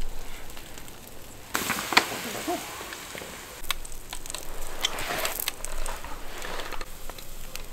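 Lamb pieces sizzling on a wire grill over a charcoal fire, loudest about a second and a half in and again near the middle. Scattered sharp clicks come from tongs against the grill.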